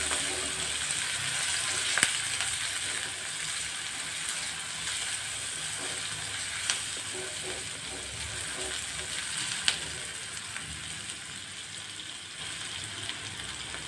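Chopped onion, green chilli and curry leaves sizzling steadily in hot oil in a metal pan while being stirred with a wooden spatula, with a few sharp clicks as the spatula knocks the pan.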